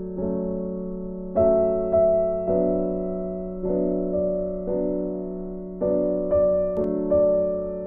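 Background piano music: gentle chords struck roughly once a second, each fading, over a steady low held note.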